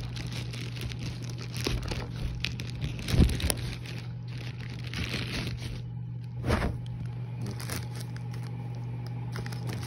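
Plastic mailer packaging crinkling and rustling as it is pulled open and handled, with a couple of bumps about three seconds and six and a half seconds in, over a steady low hum.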